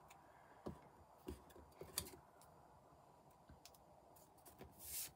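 Small scissors snipping card: a few faint, sharp clicks spaced about a second apart, then a soft brushing rustle near the end.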